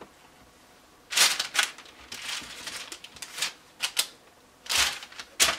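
Cooked egg bites being popped out of a flexible silicone muffin mold onto parchment paper: about half a dozen short rustles and soft scrapes with quiet gaps between.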